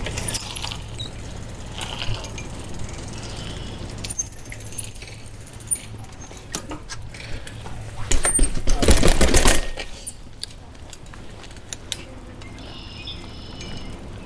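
Bicycle bumping down a short flight of stairs, its frame and parts rattling and clanking over the steps. There is a run of knocks about four to seven seconds in, and the loudest clatter comes about eight to ten seconds in.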